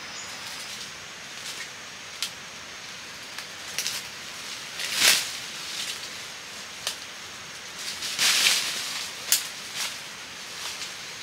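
Dry leaves, twigs and bamboo undergrowth rustling and crackling as a person moves through them on foot, in short bursts. The loudest crackle comes about five seconds in, with a busier stretch of crackles around eight to nine seconds.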